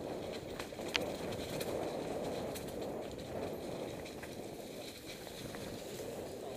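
Mountain bike rolling down a trail covered in dry leaves and dirt: steady tyre noise over the leaf litter with scattered clicks and rattles from the bike, one sharper click about a second in.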